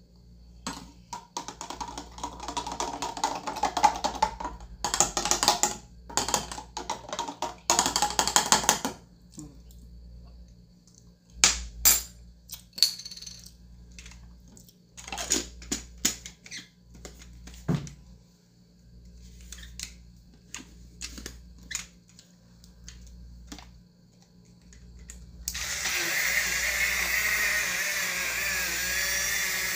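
Handling noises: rustling, scraping and clinking of jars and a cup for the first several seconds, then scattered taps and clicks. About 26 s in, a small portable cup blender switches on and runs steadily, mixing a drink.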